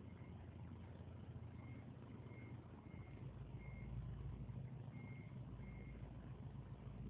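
A faint series of short, high electronic beeps, about one every two-thirds of a second with a couple of longer pauses, over a steady low rumble.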